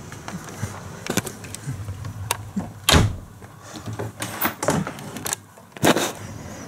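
About a dozen irregular sharp knocks and clicks, the loudest about three seconds in and again near the end.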